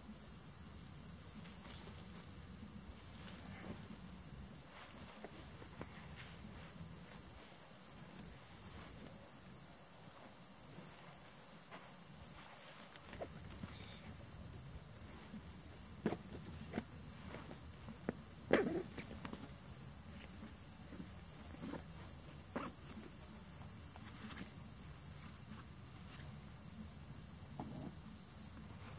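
Steady high-pitched insect chorus, with a few scattered rustles and knocks from bedding and camping gear being handled, loudest a little past the middle.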